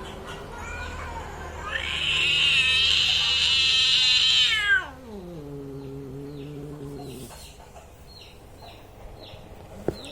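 Angry domestic cat caterwauling: a loud, high wail about two seconds in that drops steeply in pitch into a low, drawn-out moan, stopping about seven seconds in. This is a hostile, defensive yowl. Faint bird chirps follow, with a single click near the end.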